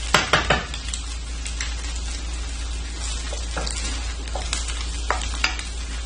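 Vegetables and egg sizzling in hot oil in a wok, with a steady frying hiss. A stirring utensil knocks against the wok in a quick cluster at the start, then clicks and scrapes against it a few more times.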